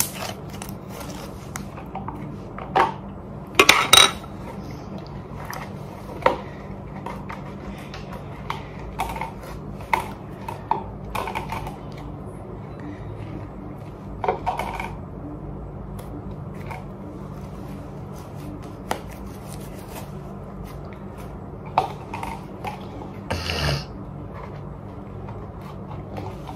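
Scattered light clicks, taps and knocks of small objects handled on a metal tray while slime is being made, with a few louder knocks, over a steady low hum.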